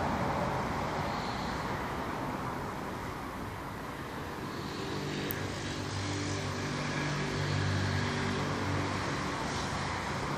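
Steady outdoor background noise, with the low hum of a distant engine coming in about halfway through and fading near the end.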